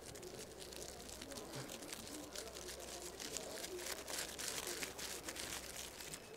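Crumpled white paper being slowly unfolded by several people's hands: faint crinkling with many small crackles throughout.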